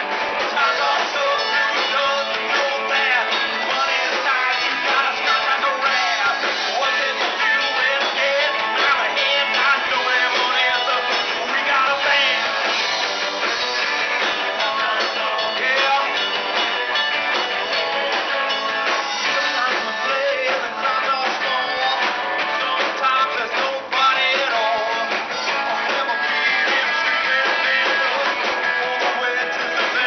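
Live rock and roll band playing with electric guitars and a drum kit, recorded through a small camera microphone that leaves it thin in the bass.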